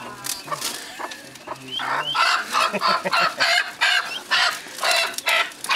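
Poultry calling: a few thin peeps at first, then from about two seconds in a run of loud, harsh clucking calls about three a second, from fowl being handled for Newcastle disease eye-drop vaccination.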